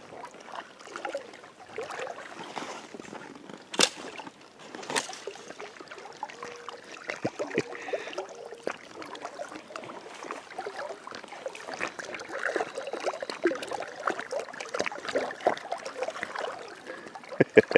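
Water sloshing and lapping around a float tube as it is paddled along the river, uneven throughout, with two sharp knocks about four and five seconds in.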